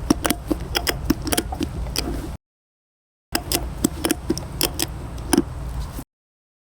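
Ratchet strap handle being worked up and down, its pawl clicking over the barrel teeth in quick, irregular clicks as the strap is tightened, over a steady low hum. The sound cuts out abruptly for about a second in the middle and again near the end.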